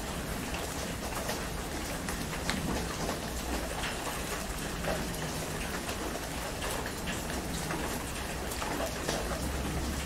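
Heavy rain falling steadily on a tent, with frequent sharp taps of single drops and a low rumble underneath.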